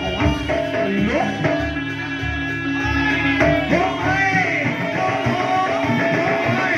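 Live jaranan accompaniment music: drums under a melody that bends and wavers in pitch, over steady held tones.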